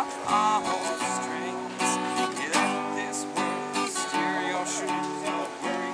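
Acoustic guitar strummed in steady chords. A short wavering higher melody line rings over it near the start.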